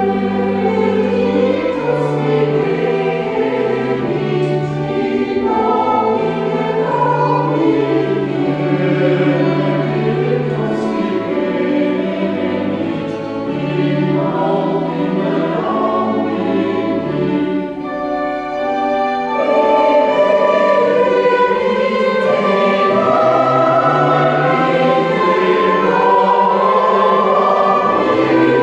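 Church choir singing a mass setting, accompanied by organ holding low notes that change every second or two.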